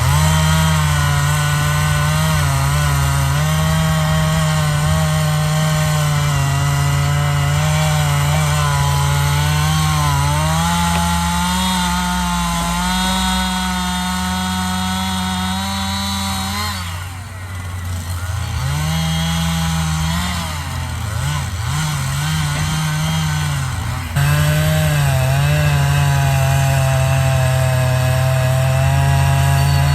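Two-stroke chainsaw running at high revs, cutting through wood. About halfway through the engine note drops and wavers for several seconds as the throttle eases and picks up, then it returns to a steady full-speed cut.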